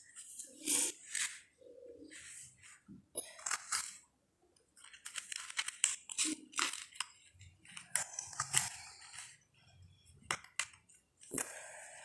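Cardboard jigsaw puzzle pieces being slid across a paper sheet, picked up and pressed into place: irregular scraping and rustling with light clicks.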